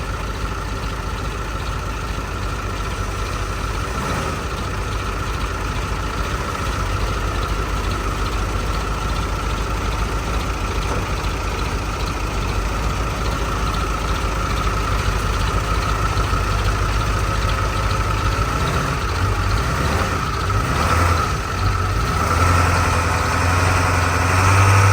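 Vehicle engine idling steadily, then running harder and louder in the last few seconds.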